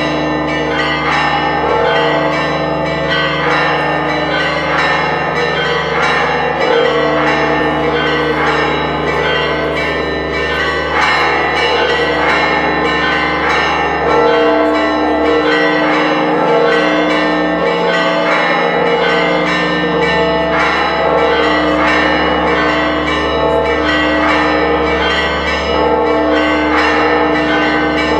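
Church bells ringing in a continuous peal, many strokes a second, their tones overlapping and held.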